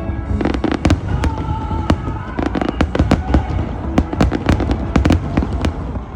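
Fireworks display: a dense, rapid barrage of bangs and crackles, easing off near the end.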